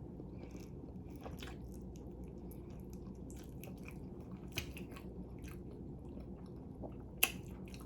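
A person chewing and biting food close to the microphone: soft scattered mouth clicks and small crunches, with one sharper click about seven seconds in.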